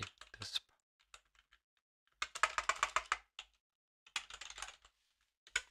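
Typing on a computer keyboard in two quick runs of keystrokes, the first about two seconds in and a shorter one about four seconds in, with a few light taps before.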